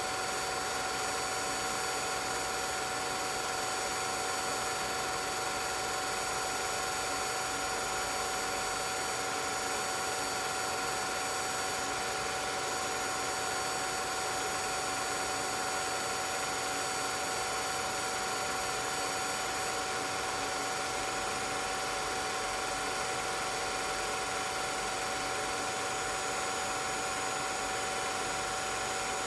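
A 16mm film projector running, with a steady mechanical hum and hiss carrying several constant high tones. The film itself is silent.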